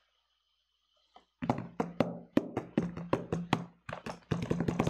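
After about a second and a half of silence, a quick, irregular run of knocks and taps starts and keeps going, several strikes a second.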